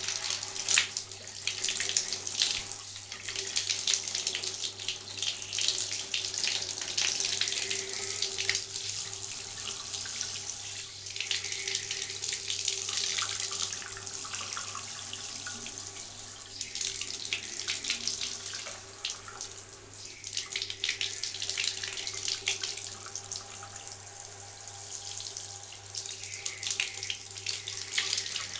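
Handheld shower head spraying water onto a hand held in the stream, a splashing hiss that swells and thins as the hand moves through the spray, over a faint steady hum.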